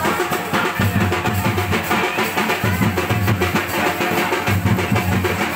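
Music with a steady drum beat and a prominent bass drum.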